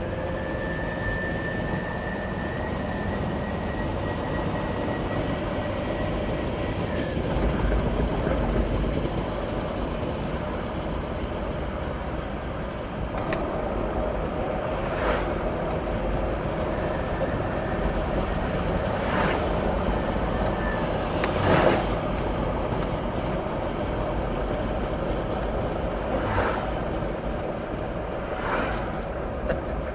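Mercedes-Benz OM602 five-cylinder turbodiesel running, with a high steady turbocharger whistle. The whistle rises slightly in pitch over the first seven seconds, then fades, and returns more faintly later on.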